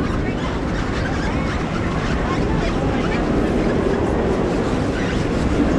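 Steady rushing of water and ride machinery around a round river-rapids raft, with riders' voices chattering faintly underneath.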